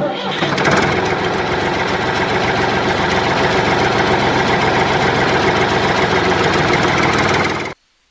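A home-made battery-powered toy tractor's small motor and drive running: a loud, steady, engine-like mechanical drone that starts abruptly and cuts off suddenly near the end.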